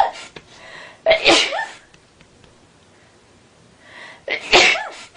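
A woman sneezing twice: once about a second in and again a little after four seconds in.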